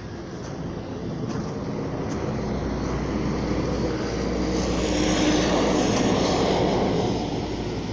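A passing engine growing louder over several seconds, loudest about five to seven seconds in, then fading near the end.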